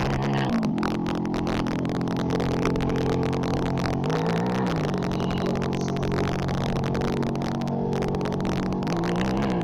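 Hero Splendor's single-cylinder engine running loud through a full-system Akrapovic exhaust with its dB killer removed. The note holds steady, and the revs rise briefly and drop back three times: near the start, about halfway and near the end.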